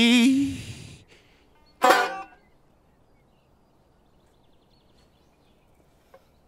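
A man's held, wavering sung note ends the blues song and fades out over the first second. About two seconds in comes a brief, loud pitched sound lasting about half a second, and then it goes quiet.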